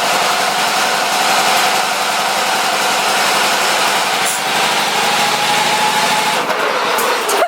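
Riding lawn mower engine running hard at steady high revs. Its pitch creeps up slightly, then falls away in the last second or so.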